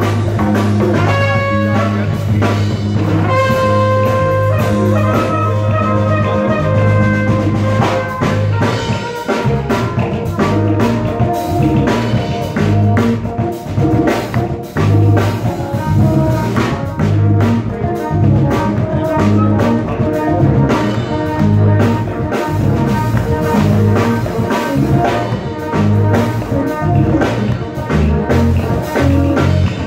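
A live band with a horn section of trumpet, trombone and saxophone playing over a drum kit, electric bass and djembes. The horns hold long notes together in the first several seconds, then the groove carries on under busier playing.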